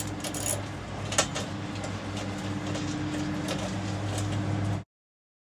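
A steady low mechanical hum, as from a running motor, with a few sharp clicks and knocks over it; it cuts off abruptly near the end.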